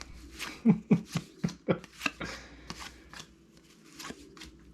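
Baseball cards being flipped through by hand: a quick run of cardboard flicks and slides as each card is turned over, busiest in the first two seconds and sparser after.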